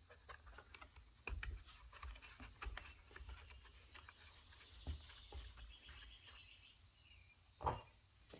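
Faint handling noises of a new air filter and its plastic parts being fitted onto a Stihl FS 56 RC trimmer: scattered small clicks and taps, with a louder knock near the end.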